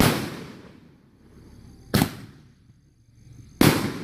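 An 8-shot Roman candle firing three shots, each a sharp bang that trails off over about half a second, spaced roughly two seconds apart.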